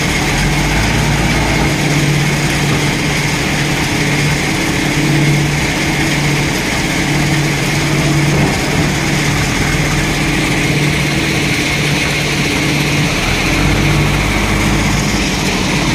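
JCB 3DX backhoe loader's diesel engine running under load as the front loader works, its note swelling and easing every second or two.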